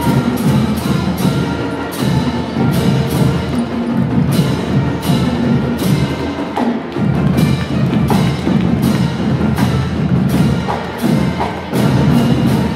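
High school pep band playing a tune: brass with sousaphones over a steady drum beat of about two or three hits a second.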